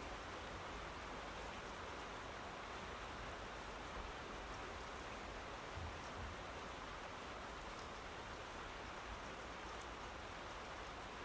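Steady rain falling, an even patter of drops.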